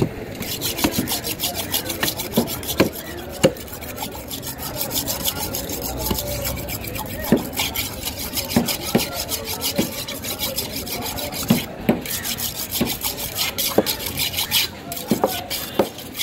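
A knife scraping the scales off a skin-on piece of barramundi in fast, even rasping strokes, with occasional knocks of the knife and fish.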